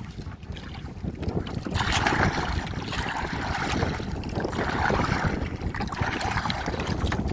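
Wind rumbling on the microphone over sea water, with irregular splashing and sloshing of water that gets louder about two seconds in.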